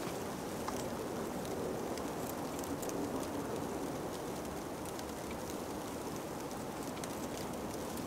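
Steady outdoor wind noise, an even hiss and rumble on the microphone, with a few faint clicks of sticks and cord being handled.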